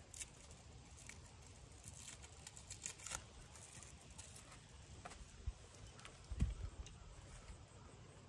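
Faint clicks and rattles of saddle tack being handled, with a steady low rumble of wind on the microphone and a dull thump about six seconds in.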